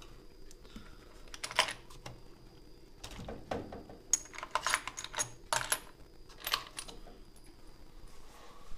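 Irregular metallic clicks and clinks from a steel steering-wheel puller plate and its bolts being handled and test-fitted against a steering wheel hub, in several short clusters.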